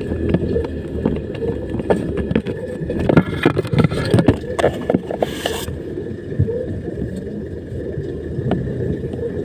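Mitsubishi Strada Triton pickup's engine running under a heavy load in four-wheel drive on a rough dirt climb, with a run of knocks and rattles from the body bouncing in the middle, and a brief rush of noise about five seconds in.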